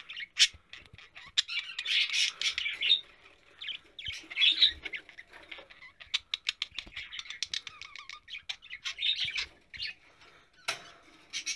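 Budgerigar squawking and chattering in short repeated bursts, with sharp clicks and rattles of the metal wire cage as the bird clings to and climbs the bars.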